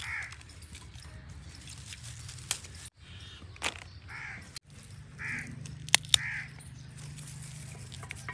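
A crow cawing about four times in short harsh calls, with a few sharp snaps of pea pods being picked off the vines, the loudest two close together in the second half. A low steady hum runs underneath.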